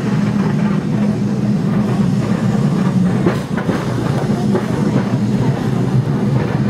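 An electric tram running along its track: a steady low drone with wheel-on-rail rumble and a few rattling clacks about halfway through.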